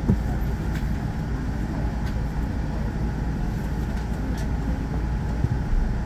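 Cabin noise inside a Boeing 787-9 Dreamliner taxiing: a steady low rumble, with a brief low thump just after the start and another near the end.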